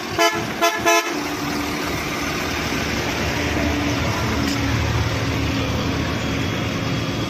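Three short blasts of a bus horn in the first second, then the BharatBenz sleeper bus's diesel engine running steadily.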